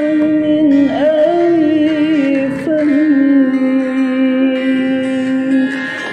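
A sholawat, an Islamic devotional song, sung in long held notes with wavering ornamental runs over a musical accompaniment; the melody steps down to a lower held note about three seconds in and grows softer near the end.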